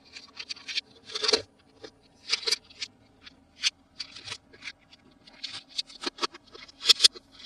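Hands handling and opening toy packaging: irregular crinkles, clicks and scratches, with a few sharper snaps near the end.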